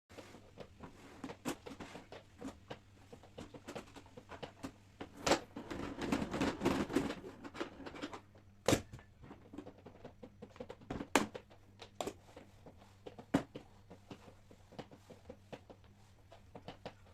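Household cleaning and handling sounds: scattered light clicks and knocks, a stretch of rustling from about five to eight seconds in, then a few sharp knocks, over a faint low hum.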